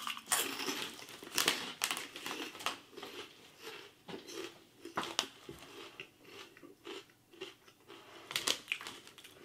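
A person biting and chewing crunchy Filipino chicharon pork rinds (pork crunch), heard as an irregular run of crisp crunches.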